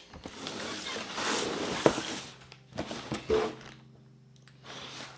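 A long cardboard tripod box sliding and being turned over on a table: a scraping rustle for about two seconds with a sharp knock near its end, then a few softer thumps.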